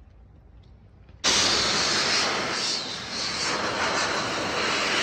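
A loud, steady rushing noise starts abruptly about a second in and cuts off suddenly near the end.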